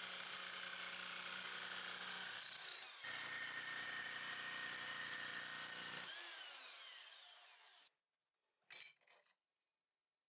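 Power nibbler cutter running and chewing through thin sheet metal, with a brief break about three seconds in. About six seconds in it is released and the motor winds down in a falling whine over about two seconds. A short burst of noise follows near the end.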